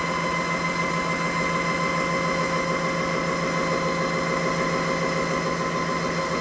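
Redroad W13 cordless wet-dry vacuum mop running its self-cleaning cycle in its base, the motor and rolling brush spinning with a steady hum and whine.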